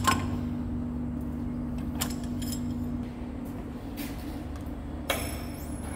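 Sharp metal knocks and clunks from a T-handle chuck key working the jaws of a large lathe chuck clamped on a steel tube: a loud one at the start, a few smaller ones about two and four seconds in, and another loud one about five seconds in. Under them a steady low machine hum fades about three seconds in.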